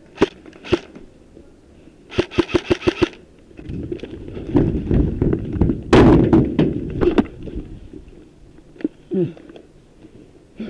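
Airsoft gun firing: two single shots, then a quick burst of about seven shots in under a second. Then a few seconds of loud rumbling noise with a sharp knock about six seconds in.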